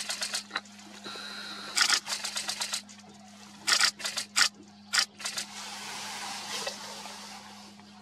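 Camera shutters firing in four rapid bursts of about ten clicks a second, over a steady low hum.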